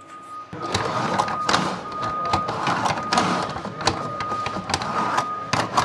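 Zinc sheet-metal tile being worked with hand crimpers: scraping and rattling of the thin metal sheet with many sharp clicks from the tool.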